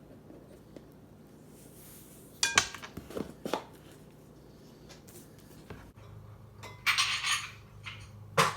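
Kitchen utensils clinking: a metal spoon knocks against a bowl with a short ring three times, then dishes and utensils clatter and scrape as they are handled, with another knock near the end.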